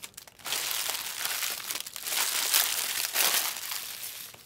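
Plastic trading-card pack wrappers crinkling as they are handled, starting about half a second in and louder around the middle.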